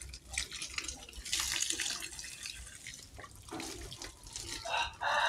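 Water pouring from a garden hose onto a canvas sneaker and splattering on the ground as the shoe is rinsed, with uneven splashes. Near the end a loud pitched call begins.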